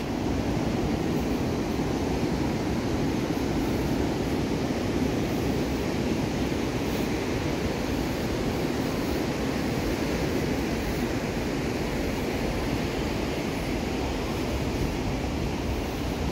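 Steady rushing noise of ocean surf breaking along a sandy beach, with wind rumbling on the microphone.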